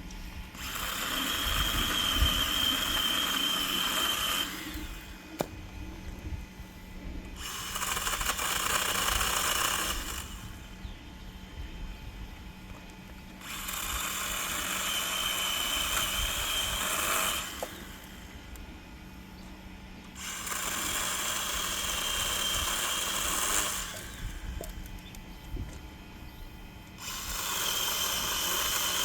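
Electric chainsaw run in five bursts of about three to four seconds each, a few seconds apart, each burst with a steady high whine from the motor and chain.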